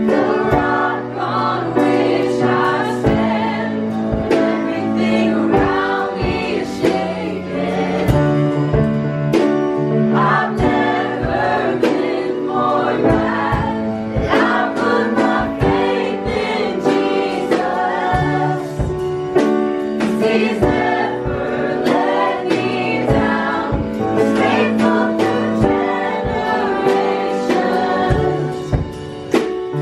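Background music: a choir-like, gospel-style song with sung voices over sustained chords and a steady beat.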